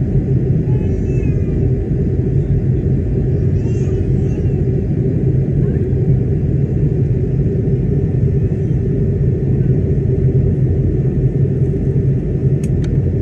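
Steady low rumble of an Airbus A220-300 in flight, heard inside the cabin: its Pratt & Whitney PW1500G geared turbofan engines and the airflow over the fuselage. Two faint clicks come near the end.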